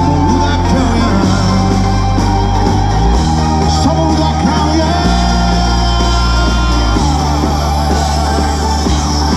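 Pop-rock song with a singer over a band, its bass notes shifting every couple of seconds.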